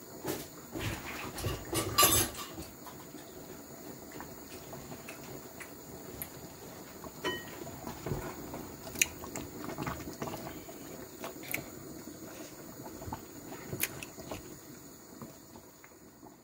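A metal pot of meat cooking in liquid on the stove, with a wooden spoon stirring it and knocking against the pot now and then, the loudest cluster of knocks about two seconds in.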